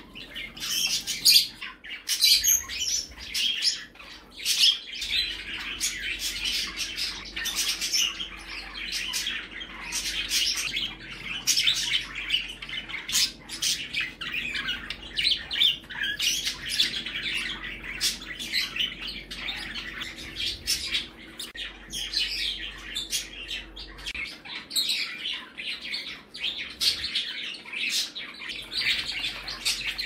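A room full of small pet parrots, budgies, lovebirds and other small parakeets, chirping and calling over one another in a continuous stream of short, high calls.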